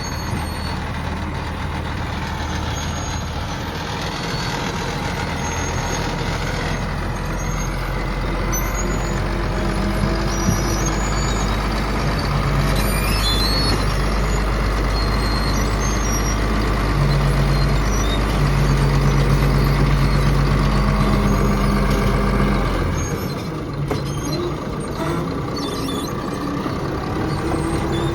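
Heavy vehicle engines running with a steady low drone and changing engine tones; the deep rumble drops away about 23 seconds in.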